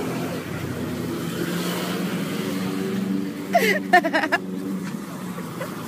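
Street traffic: a car engine running as it drives past, a steady low hum. A short burst of voice comes through about three and a half seconds in.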